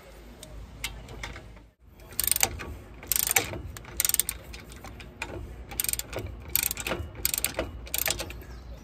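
Hand ratchet clicking in short back-and-forth strokes, tightening a bolt on a truck's front brake caliper. The clicks come in repeated quick bursts, with a short pause about two seconds in.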